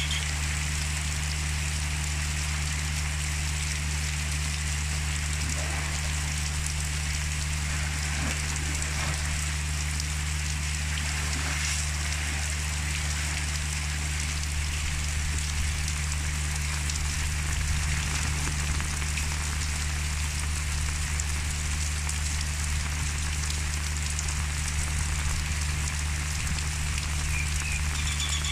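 Steady rain falling on muddy ground and puddles, an even, unbroken patter, with a steady low hum underneath.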